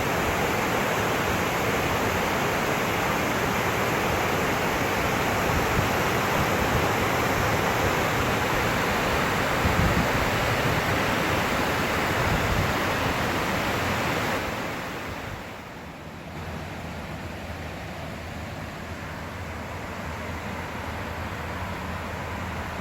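Steady rush of waterfall water, a continuous even roar that drops noticeably in level about fourteen seconds in and then carries on quieter.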